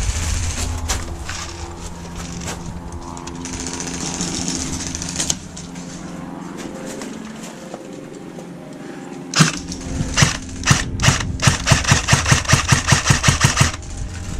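Airsoft gun firing a rapid string of sharp shots during the last few seconds, after a stretch of low rumbling outdoor noise.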